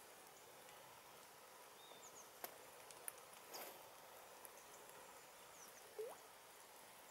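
Quiet alder-swamp ambience: a faint steady hiss with a few scattered faint high chirps and clicks. Near the end comes one short rising tone, the loudest sound.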